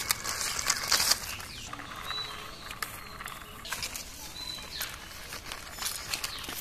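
Plastic toy tricycle rickshaw pushed by hand along a rough concrete ledge: its plastic wheels rolling and scraping, with irregular clicks and rattles.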